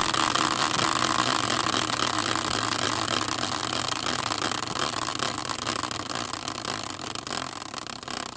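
Prize wheel spinning, a fast continuous clatter of ticks that begins to slow and thin out into separate clicks near the end.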